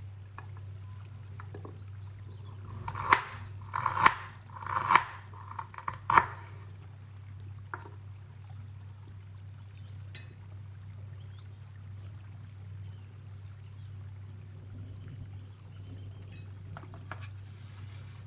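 Kitchen preparation noises: a cluster of four short handling sounds a few seconds in, then a few faint ticks, over a steady low hum.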